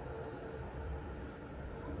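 Distant jet airliner engines: a steady low rumble with a faint hum above it.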